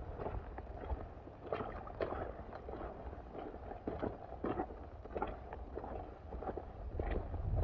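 Footsteps on wet gravel and mud, irregular strikes a couple of times a second, with wind rumbling on the microphone.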